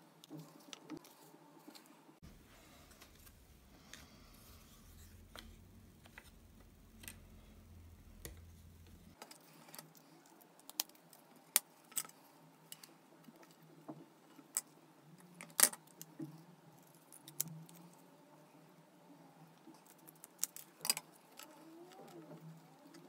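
Light clicks and clacks of wooden popsicle sticks being handled, set down and tapped against each other and the tabletop, scattered and irregular, with the sharpest knock a little past the middle.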